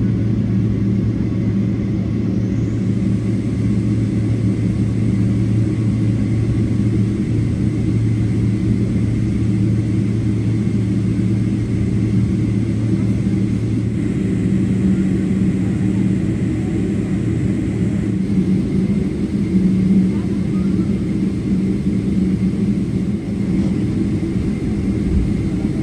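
Boeing 777-300ER's GE90-115B jet engines running at taxi power, a steady low rumble with a faint high whine, heard from inside the passenger cabin.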